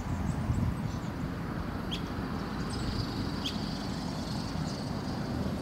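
Steady low outdoor rumble with three short, high chirps spaced out across it, likely from birds. A faint thin high hum sits in the middle.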